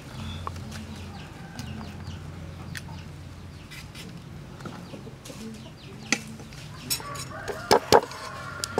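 Chickens clucking, with scattered sharp clicks and knocks of knives being handled. About seven and a half seconds in come a few loud sharp scrapes as a knife scales a fish on a wooden chopping block.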